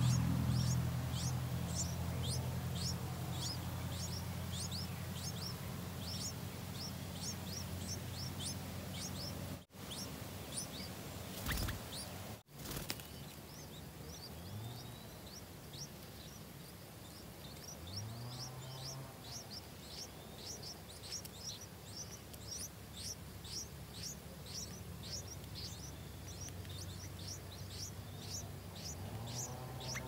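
Yellow-vented bulbul nestlings begging at the nest: a rapid series of thin, high, short chirps, about two a second, breaking off for a few seconds midway and then resuming. A low steady hum runs underneath, strongest at the start.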